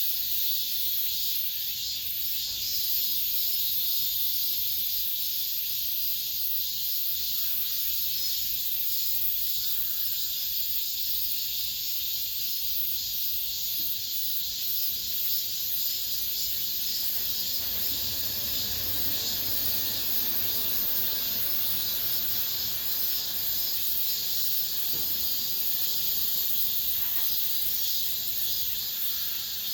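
A chorus of cicadas singing, a dense, steady high-pitched buzz without pause. A faint low rumble rises and fades in the middle.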